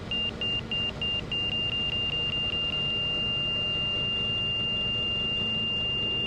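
Aircraft stall warning tone over the intercom: a high beep repeating two or three times a second that quickens about a second and a half in and becomes one steady tone as the RV-12 nears the stall. Beneath it, the low drone of the engine at reduced power and cabin noise.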